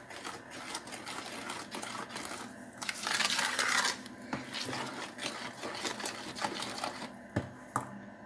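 Metal spoon stirring cornmeal into a wet batter in a plastic bowl: quick, rhythmic scraping and clicking of the spoon against the bowl. It is loudest about three to four seconds in, with two sharper knocks near the end.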